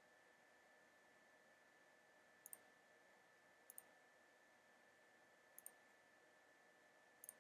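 Four faint computer mouse clicks, each a quick press-and-release double tick, spaced irregularly over a faint steady high-pitched tone.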